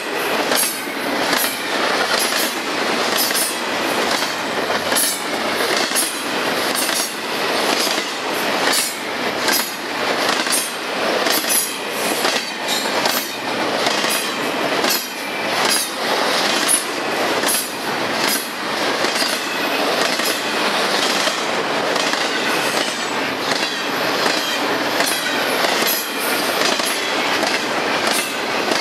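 CN intermodal freight train of double-stack well cars rolling past close by: a steady rush of steel wheels on rail, with a regular clickety-clack as the wheel sets cross rail joints.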